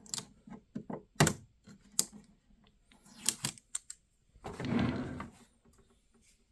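Sharp plastic clicks and knocks from handling the dehumidifier's casing and water tank, irregular, with one louder knock about a second in. A short scraping rustle follows about four and a half seconds in.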